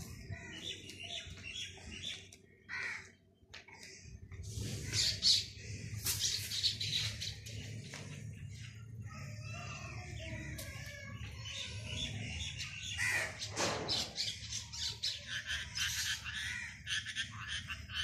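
A rose-ringed parakeet and a dove squabbling, with many short squawks and chirps in quick succession. A low steady hum sits under the calls from about four seconds in.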